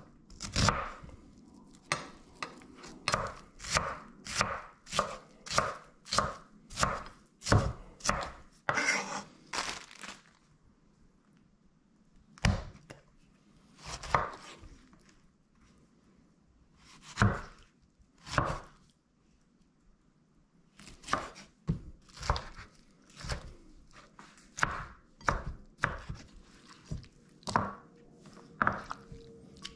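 Chef's knife chopping on a wooden cutting board. About two sharp strikes a second for the first third as a red onion is diced, then a few single cuts into a tomato, and another run of chops dicing the tomato.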